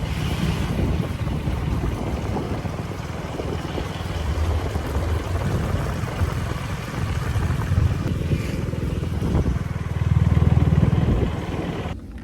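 A Husqvarna Svartpilen 250's single-cylinder engine running on the move, with wind noise on the microphone. The engine note rises and falls, is loudest about ten seconds in, and cuts off suddenly just before the end.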